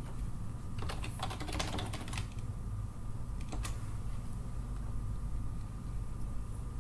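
Computer keyboard typing: a quick run of keystrokes about one to two seconds in, then a single click about three and a half seconds in, over a steady low hum.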